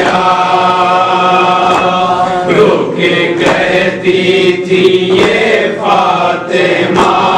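Urdu nauha (Shia lament) sung by a male lead reciter over a microphone, with a group of male mourners chanting the lines in chorus in long held phrases. A few sharp chest slaps (matam) cut through the singing.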